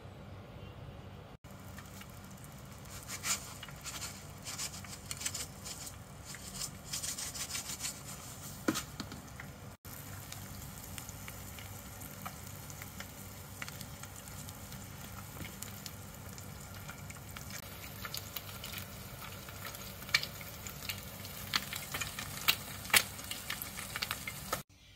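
Eggs frying in hot oil in a pan: a steady sizzle with frequent crackling pops of spitting oil.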